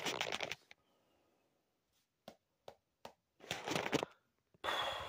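Rustling and handling noise in short bursts, with a few soft clicks in between.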